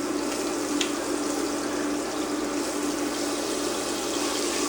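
Butter sizzling as it melts into hot olive oil in a pan on an induction cooktop: a steady hiss. A low steady hum runs underneath.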